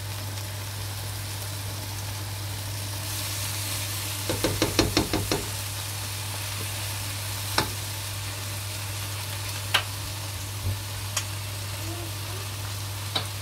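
Sweet rice (mutanjan) cooking in a pot of milk-based sugar syrup, sizzling with a steady hiss. A spoon clicks against the pot in a quick run about four seconds in, then with single clicks every couple of seconds.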